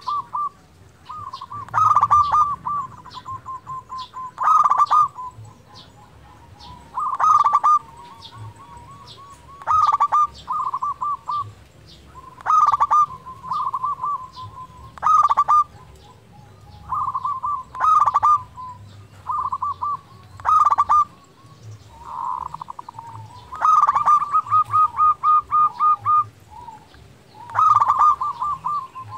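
Zebra dove (perkutut) singing its rolling coo: bursts of quick, staccato notes at much the same pitch, one phrase every two to three seconds.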